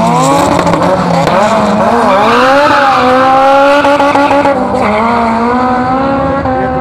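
Two turbocharged drag cars, a Peugeot 106 Turbo and a Honda Civic Turbo, accelerating hard down the strip. Their engines rev up through the gears, the pitch dropping at a shift about two seconds in and again about five seconds in.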